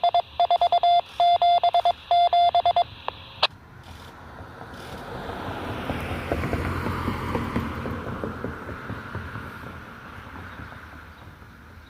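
Siren-system polling tones coming through a Baofeng UV-5R handheld radio's speaker: rapid beeping bursts of steady tones that end about three and a half seconds in with a sharp squelch click. After that a vehicle passes, a broad rush that swells and fades.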